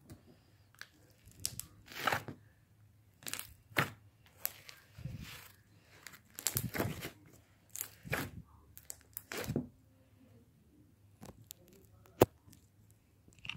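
Slime being squeezed and stretched by hand: irregular crackling, popping squishes, with one sharp click near the end.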